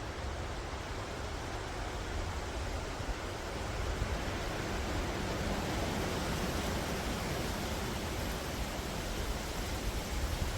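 Wind moving through forest trees, a steady rushing with leaves rustling, swelling a little louder about four seconds in.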